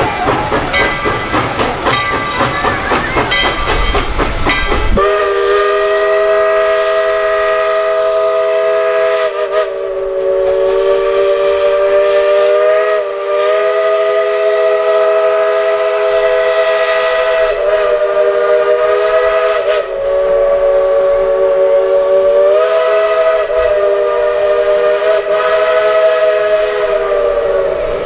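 Narrow-gauge steam locomotive working with rapid rhythmic beats; about five seconds in its steam whistle opens up, several notes sounding at once, and is held with slight wavers for over twenty seconds.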